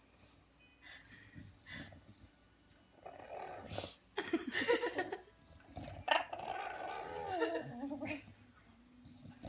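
Bulldog making strange vocal noises: a few drawn-out calls with wavering, bending pitch, starting about three seconds in and loudest a second or two later.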